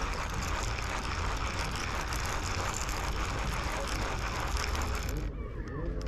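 Spinning fishing reel being cranked, line winding in with a steady whirr, over wind rumble on the microphone. The whirr stops for a moment near the end.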